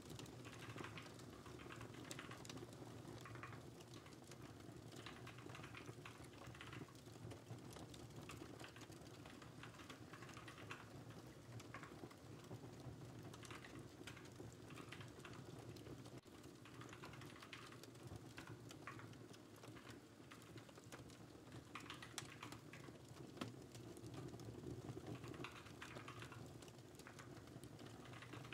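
Computer keyboard typing in irregular bursts of quick, soft key clicks, over a faint steady fireplace crackle.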